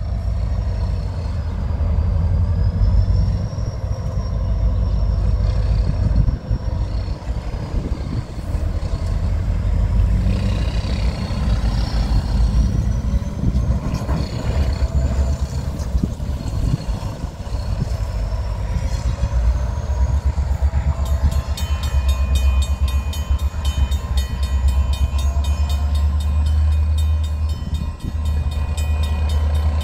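A steady low rumble; about two-thirds of the way through, a railroad grade-crossing warning bell starts ringing in a fast, even repeat as the crossing signals reactivate with no train at the crossing.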